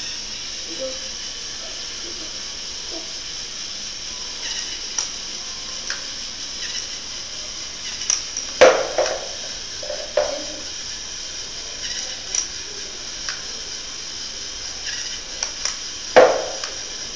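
LEGO Mindstorms NXT pitching machine swinging its motor-driven beam arm at a rolling ball, set off when its ultrasonic sensor detects the ball. There are two sharp clacks about eight and a half and sixteen seconds in, with a few lighter knocks around the first, over a steady hiss.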